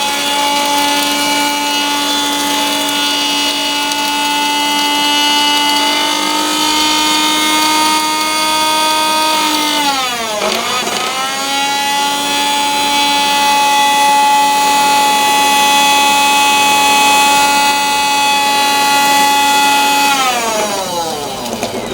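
Electric mixer grinder (mixie) running at high speed, grinding ginger and garlic with water into a paste: a steady high motor whine. About ten seconds in it slows sharply and speeds back up, and near the end it winds down as it is switched off.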